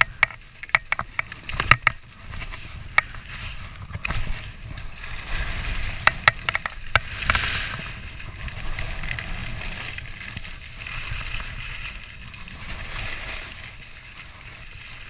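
Skis hissing and scraping over packed snow while skiing downhill, with wind rumbling on the camera's microphone. A run of sharp clicks and knocks in the first few seconds, and a few more about six seconds in, as the skier pushes off and plants the poles.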